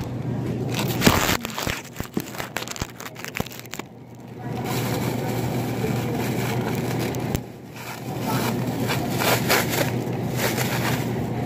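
Thin plastic produce bag crinkling and rustling as it is handled and filled, with many short crackles, over a steady low hum.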